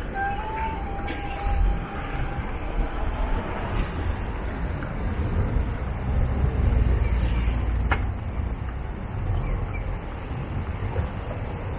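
Low rumble of passing motor traffic on a city street, swelling about six seconds in. A thin steady tone stops about two seconds in, and a single sharp click sounds about eight seconds in.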